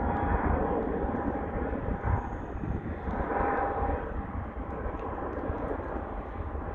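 Jet engines of a Boeing 767-300ER freighter rumbling as it climbs away after takeoff, with a faint wavering whine on top, slowly fading.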